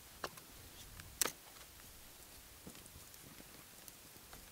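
A few small, sharp clicks and snaps of dry wooden sticks, the loudest about a second in, with fainter ticks later.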